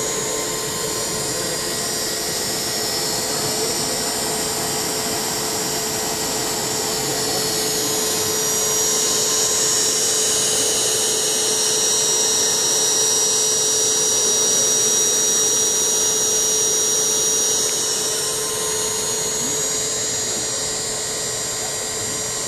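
RCA TPR-10 portable quadruplex 2-inch video tape recorder running: a steady high whine over hiss from its spinning four-head drum and tape transport, a little louder in the middle.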